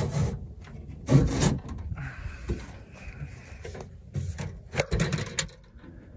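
Dry scraping and rubbing from the stuck door window glass of an old pickup truck, grinding in its dried-out channel as it is worked, followed by lighter scuffing noises.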